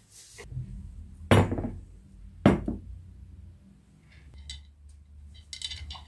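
Ceramic plates being set down on a table: two sharp clatters about a second apart, followed by lighter clinks near the end.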